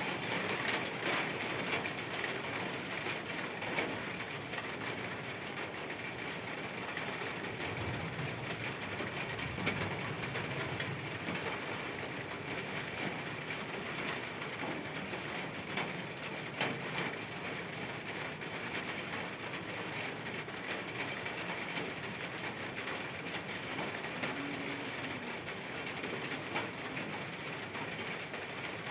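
Steady rain falling, with scattered ticks of drops hitting hard surfaces. A brief low rumble comes about eight to ten seconds in.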